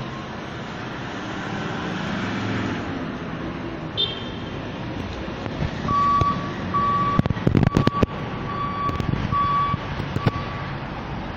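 Outdoor street noise with a vehicle running as a steady low rumble. About six seconds in, a run of six short, even beeps begins, a little under one a second, like a reversing alarm. A cluster of sharp knocks and clicks around seven to eight seconds is the loudest part.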